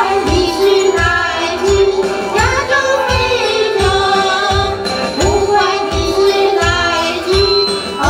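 A woman singing a song into a handheld microphone over backing music with a steady beat of about two thumps a second.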